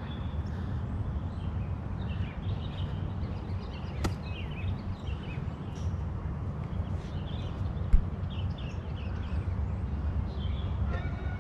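Birds chirping on and off over a steady low rumble. A sharp click comes about four seconds in and a dull thump, the loudest sound, about eight seconds in.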